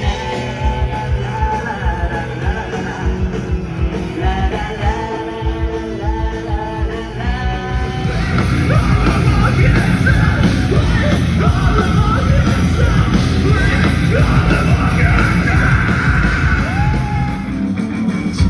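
Rock music with singing and shouted vocals; the full band comes in louder and denser about eight seconds in.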